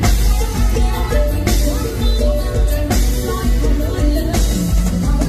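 Live Thai mor lam band music through a loud stage PA: a heavy steady bass beat with a strong drum hit about every second and a half, and a woman singing into a microphone.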